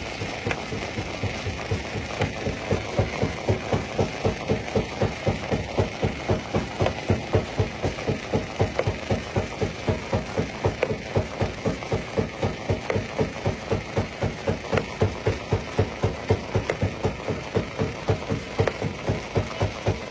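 Jaw-type stone crusher running, its moving jaw cycling in a steady, even beat of about three strokes a second over a continuous mechanical hum.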